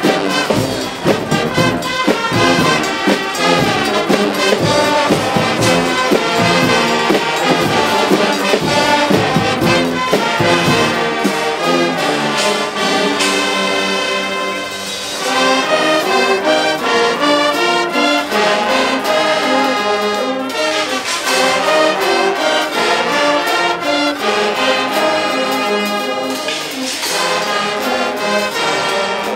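Guggenmusik carnival band playing live: loud brass chords over a strong beat, dipping briefly about halfway through before the full band comes back in.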